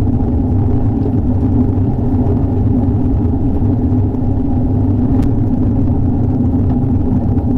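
Steady rain with a low, even rumble.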